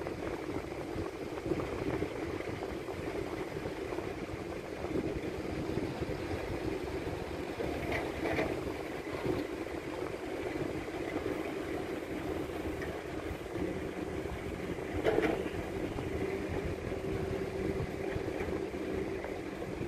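Sumitomo SH210 hydraulic excavator's diesel engine running steadily under load as it digs and loads a dump truck, with two brief louder rushes about 8 and 15 seconds in.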